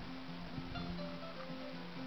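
Two koras played together as a duet: a repeating low plucked figure with short, higher melody notes picked over it.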